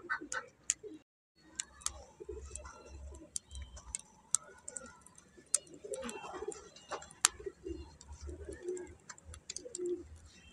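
Doves cooing over and over in the background, with scattered sharp clicks and crackles. The sound cuts out completely for a moment about a second in.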